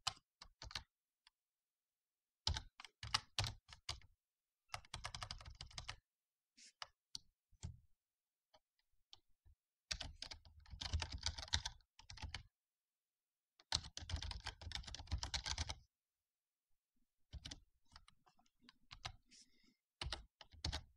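Typing on a computer keyboard: several flurries of quick keystrokes with pauses between them.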